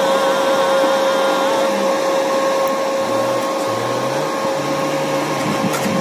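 Welding machine running idle, with a steady electrical whine and an even fan-like rushing; no arc is struck yet.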